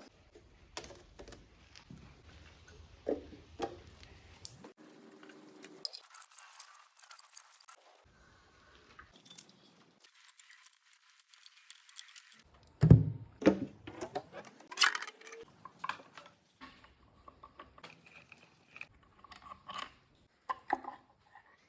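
Metal tools and engine parts clinking and knocking as they are handled, in scattered irregular clatters with abrupt cuts between them. The loudest knocks come about two-thirds of the way through.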